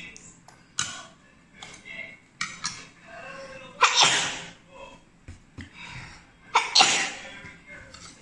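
A boy sneezing twice, covering his mouth with his hand, about four seconds in and again nearly three seconds later, with a few short clicks between.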